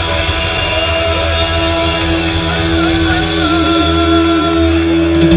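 Rock band playing: electric guitar holding long notes that bend slowly, over a steady low bass.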